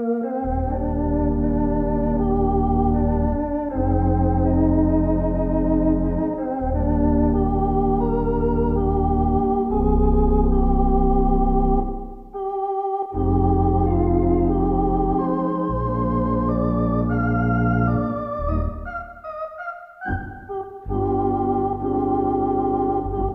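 Theatre organ playing a silent-film accompaniment: a wavering melody over held bass notes, the bass dropping out briefly several times.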